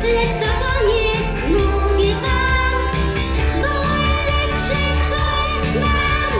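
Amateur band music with a singing voice over a steady bass line.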